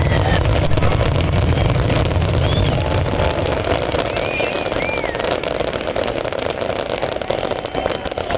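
Fireworks crackling in a dense run of pops, over a low rumble of bursts that fades out about three seconds in.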